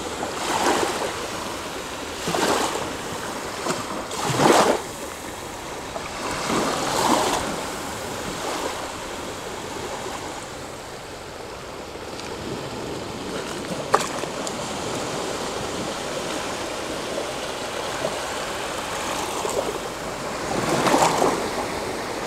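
Small Black Sea waves lapping onto a sandy beach: each wash swells into a hiss and fades, several in the first eight seconds with the strongest about four seconds in, a calmer stretch, then another wash near the end. A single sharp click about 14 seconds in.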